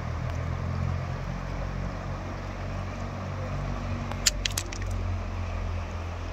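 Steady rush of a shallow river running over rocks, under a low rumble, with a quick run of sharp clicks about four seconds in.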